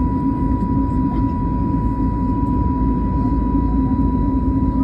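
Airbus A320neo jet engines at takeoff power: a steady low rumble with a steady high whine held on one pitch.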